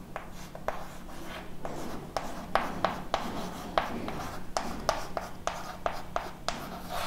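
Chalk writing on a chalkboard: an irregular run of short taps and scratches as letters are chalked.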